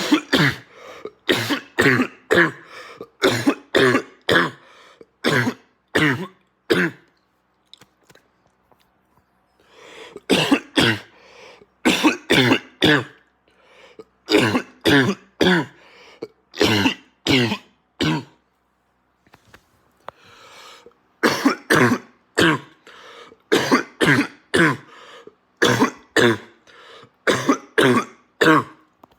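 A man's harsh, barking cough coming in three long fits of rapid coughs, each fit several seconds long, with short lulls between them.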